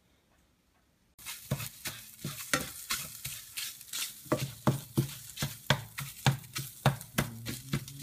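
Scrambled eggs sizzling in a frying pan while a plastic slotted spatula stirs and chops them, scraping and tapping on the pan about two to three times a second. It starts suddenly about a second in, after near silence.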